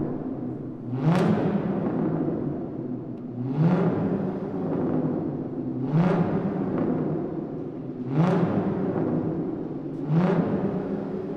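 A car engine revved in short blips, five times about every two seconds, each rev rising sharply in pitch and then sinking back toward idle, with the echo of a parking garage.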